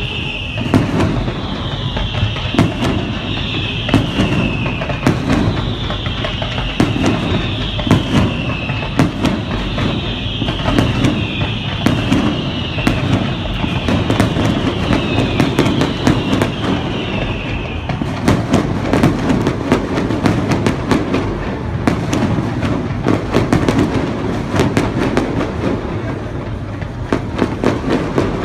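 Fireworks going off in a continuous run of bangs and crackling, getting denser about two-thirds of the way through. For the first two-thirds a high tone also falls in pitch over and over, about every one and a half seconds.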